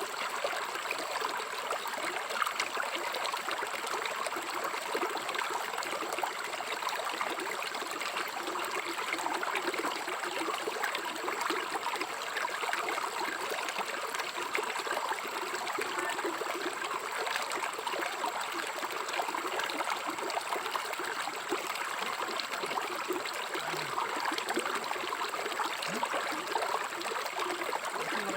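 River water running and trickling over stones, a steady even rush.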